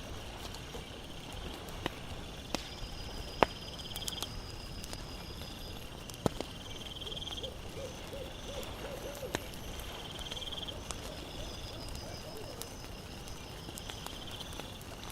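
Night campfire ambience: a wood fire crackling with scattered sharp pops, over steady pulsed insect trills. About two thirds of the way in comes a short run of low hooting calls.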